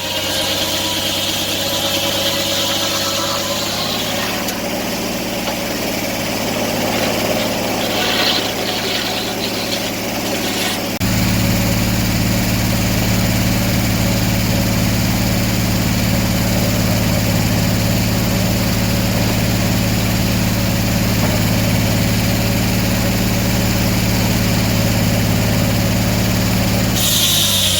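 Sawmill engine running steadily, stepping up to a louder, deeper hum about eleven seconds in.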